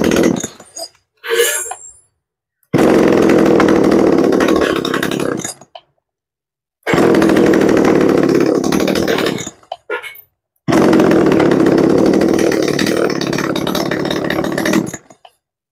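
Tanaka two-stroke chainsaw run at high revs in repeated bursts: a short blip about a second in, then three steady runs of two to four seconds each, every one cutting off sharply.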